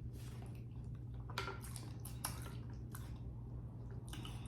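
Close-miked chewing of seafood-boil food: a few scattered wet mouth clicks and smacks over a steady low hum.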